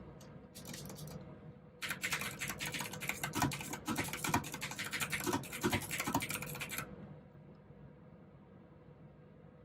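Typing on a mechanical keyboard with clicky blue switches: a few scattered keystrokes, then a fast run of typing for about five seconds that stops about seven seconds in.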